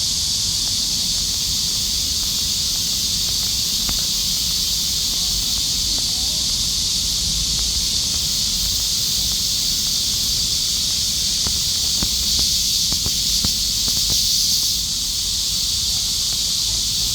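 Summer cicada chorus buzzing as one steady, dense drone. It swells a little past the middle and eases back about three seconds before the end.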